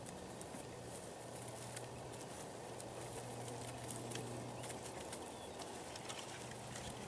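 Faint outdoor ambience in a horse paddock: a steady low hum under a noise bed, with scattered faint short ticks and chirps.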